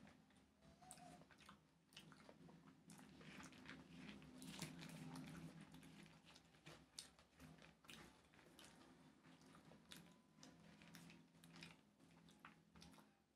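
Soft close-up eating sounds: chewing with irregular wet mouth clicks and smacks, alongside fingers squishing and mixing rice and curry on a banana leaf.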